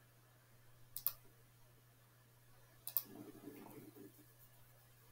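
Computer mouse clicking: a quick double click about a second in, then a single click near three seconds, followed by a faint low sound for about a second.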